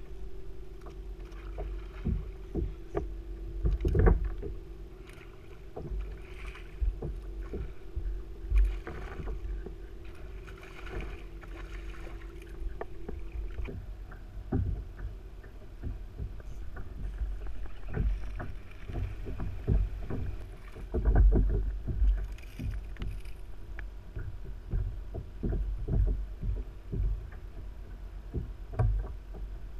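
Irregular knocks and bumps on a plastic fishing kayak as rod and gear are handled aboard, over a steady low rumble. A steady hum also runs through the first half and stops about halfway.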